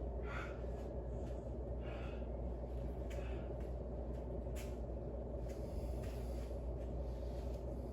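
A man breathing hard and recovering from a set of dumbbell bent rows, a loud breath about every second and a half, over a steady low hum.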